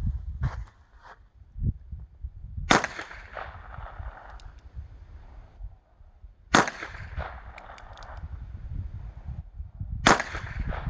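.22 revolver fired three times, a few seconds apart, each shot a sharp crack that trails off quickly.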